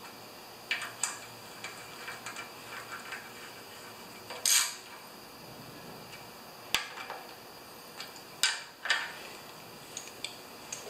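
Small metal hand tools clicking and clinking against the fittings of a generator's alternator end as connections are tightened by hand. The clicks are sharp and irregular, with a longer scrape about four and a half seconds in.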